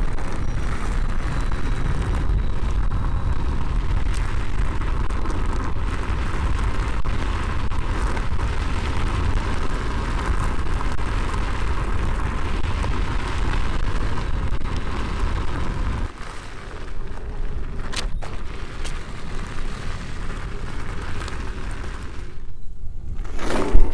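Wind rumble on the microphone and tyre noise as a Veteran Patton electric unicycle rides fast over a gravel trail. The deep rumble eases about two-thirds of the way through, and a sharp loud knock comes right at the end.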